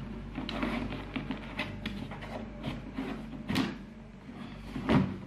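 A large rigid cardboard shoe box being handled and turned over in the hands: rubbing and scraping with light knocks, and a louder thump near the end.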